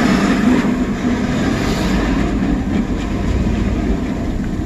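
Logging truck's diesel engine running close by, a steady low rumble.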